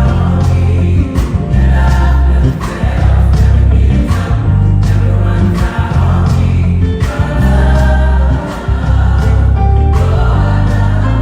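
Gospel choir singing with a live band, a Fender Jazz electric bass heavy in the low end under the voices and sharp percussive hits keeping the beat.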